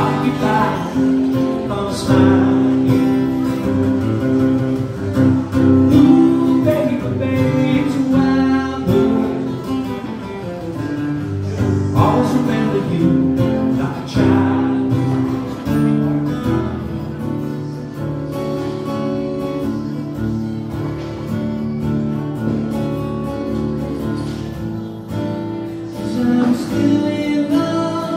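Acoustic guitar being strummed, playing a song live.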